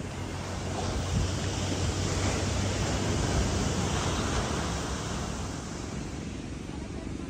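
Sea surf washing onto a rocky shore, a steady rush that swells from about a second in and eases off after about five seconds. Wind buffets the microphone, adding a low rumble.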